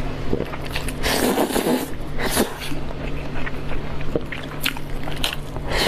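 Close-miked eating of rice noodle rolls: soft, wet chewing and mouth sounds in irregular bursts, with a few small sharp clicks, over a steady low hum.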